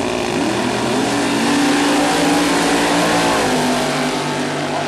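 Two drag-racing cars, one a 1984 Chevrolet Monte Carlo, launch off the line together and accelerate at full throttle down the strip. Their engine note rises just after the start, and the pitch steps down about three and a half seconds in.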